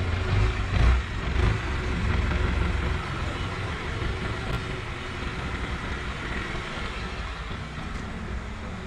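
Motor vehicle engine running close by, a low rumble that is loudest about a second in and fades after about three seconds, leaving steady outdoor street noise.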